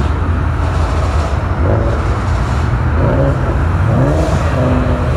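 Passing cars' engines and exhausts making a loud, steady, deep rumble, with a few short rising and falling revs in the second half.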